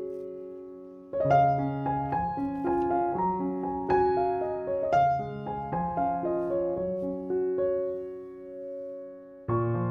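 Background piano music: slow melodic phrases of struck, decaying notes, one beginning about a second in and fading out, and a new phrase starting just before the end.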